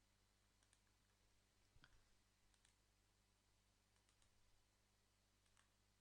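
Near silence: faint room tone with about five soft, scattered clicks.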